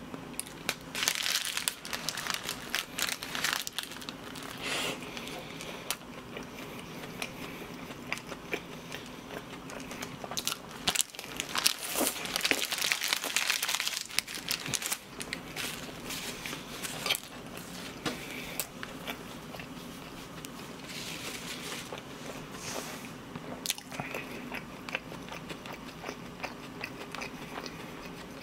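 Close-miked chewing and mouth smacking on a toast sandwich, with a paper wrapper crinkling and being crumpled in the hands; the crinkling is loudest about a third of the way in and again around the middle.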